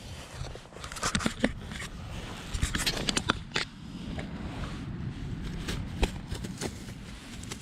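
Close handling noise: clusters of clicks, rattles and scrapes about a second in and again near the middle, one more click later, over a low rumble of wind on the microphone.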